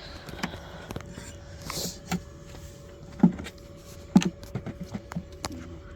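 Wooden beehive frames and a hive tool being handled: scattered knocks and scrapes of wood on wood, with two louder knocks about three and four seconds in.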